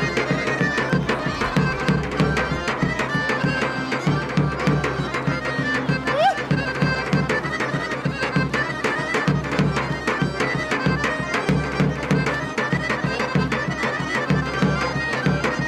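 Traditional folk dance music: a drum beats a steady, even rhythm under a melody instrument playing held notes.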